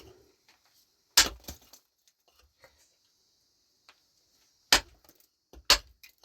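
Four sharp knocks of something hard struck against something hard: two close together about a second in, then two more about a second apart near the end.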